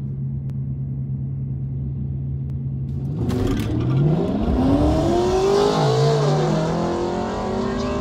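2009 BMW 335i's twin-turbo inline-six idling steadily on the start line, then launching about three seconds in and accelerating hard, the engine note climbing in pitch. About six seconds in the pitch drops at an upshift and starts climbing again. Heard from inside the cabin.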